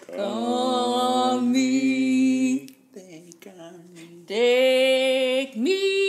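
A voice singing unaccompanied in long held notes, breaking off for about a second and a half midway before holding another note and sliding up near the end.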